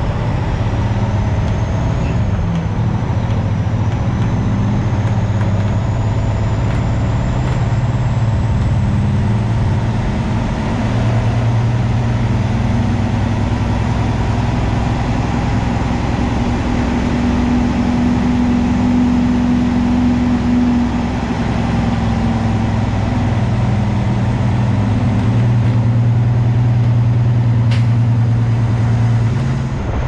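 Semi truck driving: a steady low engine drone over road noise.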